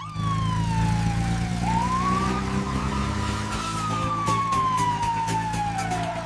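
A siren wailing slowly: its pitch falls, rises, then falls again, over a steady low hum.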